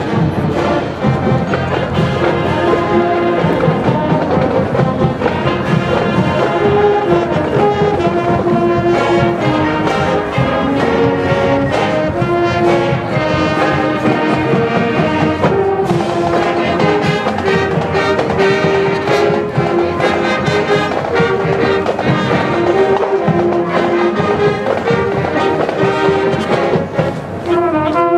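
High school marching band playing a tune on brass and saxophones, sousaphones underneath, with a melody moving steadily from note to note.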